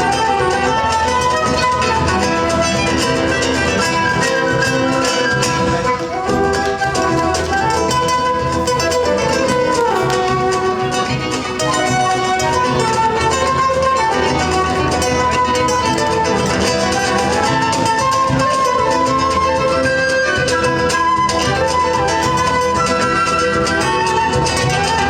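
An ensemble playing instrumental Latin American folk music, a gliding melody line over steady accompaniment, with two brief dips in level.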